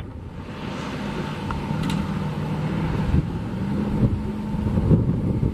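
Airbus A380 jet engines at taxi power: a steady low rumble with a faint wavering hum, and gusts of wind on the microphone.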